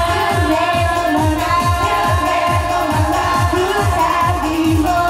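J-pop idol song performed live through a PA system: female voices singing into handheld microphones over a backing track with a steady, driving kick-drum beat.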